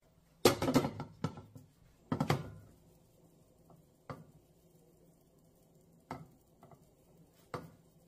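Cookware clatter: a glass pan lid and a frying pan being handled, with two loud clusters of clinks and knocks in the first two and a half seconds, then a few lighter single knocks as sandwiches are set in the pan.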